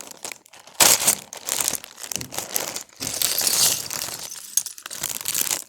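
Packaging of a Lego set being opened and handled: crinkling and rustling in uneven bursts, starting about a second in and stopping abruptly near the end.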